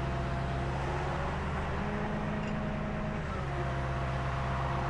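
Tow truck engine running steadily at idle, with a low even hum. Partway through, one of its tones steps up in pitch for about a second and a half, then drops back.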